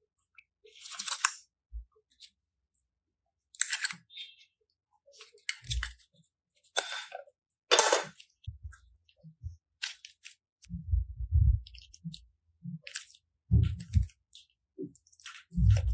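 Slime being pressed and squished, giving a run of short crackling, popping squishes at uneven intervals, some with a dull low thud.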